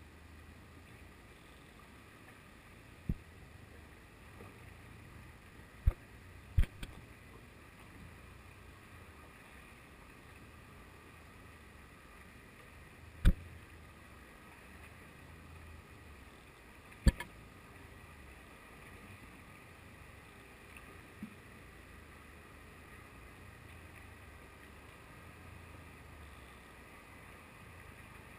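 Muffled underwater sound picked up by a GoPro in its waterproof housing on a lead jigger: a steady low hum and hiss, broken by sharp knocks at uneven intervals, four loud and a couple fainter.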